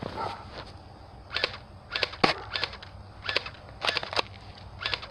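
Footsteps crunching through dry leaves and brush at a walking pace, about two sharp crackling steps a second, starting a little over a second in.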